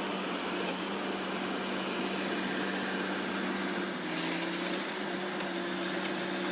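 Engine of a biomass harvesting machine running steadily with an even drone. Its pitch dips slightly about four seconds in.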